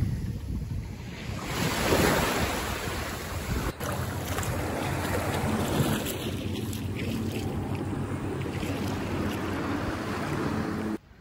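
Small waves washing onto a sandy beach, with wind buffeting the microphone. From about four seconds in, a distant boat engine adds a steady low hum underneath.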